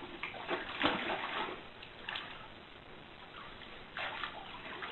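Water splashing in irregular bursts.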